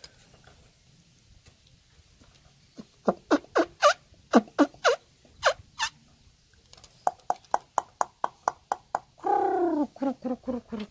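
A bird calling in short, sharp notes: a run of separate quick notes, then a faster string of short pulses about five a second. Near the end there is one longer, lower call.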